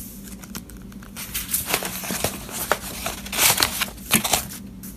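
Paper pages of a thick parts catalog in a three-ring binder being turned by hand: a run of rustles and sharp flaps, loudest around three and a half to four seconds in.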